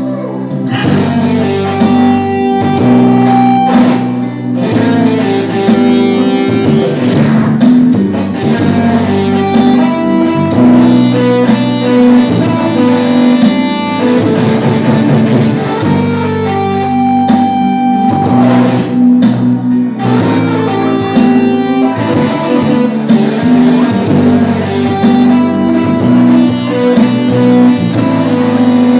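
A live band plays an instrumental passage between verses, with guitar leading and no singing.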